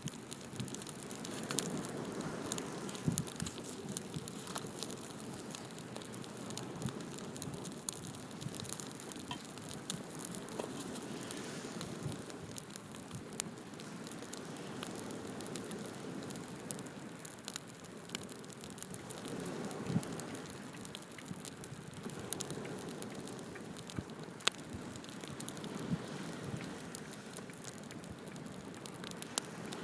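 Open wood fire burning, with steady crackling and occasional sharper pops over a soft rushing background.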